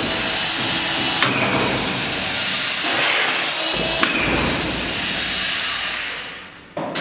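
Cordless auto-feed drywall screw gun with collated screws on a strip, its motor running steadily while screws are driven through gypsum board into a metal stud frame. There are sharp clicks about a second in and again about four seconds in. The motor winds down near the end.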